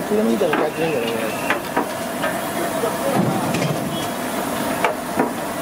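Indistinct voices over a steady hum and hiss, with a few sharp knocks scattered through.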